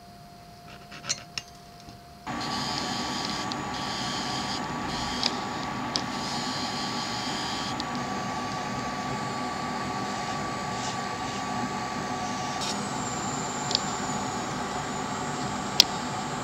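A jeweller's rotary handpiece spins a rubber abrasive polishing wheel against a platinum ring mount, running steadily with a constant whine. It starts abruptly about two seconds in, after a few small clicks.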